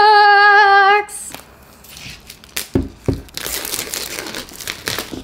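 Clear plastic shrink-wrap crinkling as it is peeled off an AirPods Max box, after two soft knocks of the box being handled.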